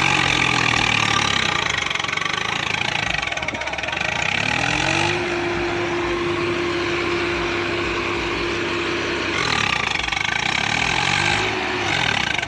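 Swaraj 855 FE tractor's diesel engine running hard. It revs up about four seconds in, holds high for several seconds, then drops back and briefly revs again near the end.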